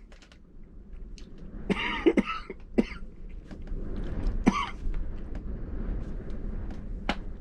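A man coughing and clearing his throat a few times, his throat burning from flamin' hot spicy snacks.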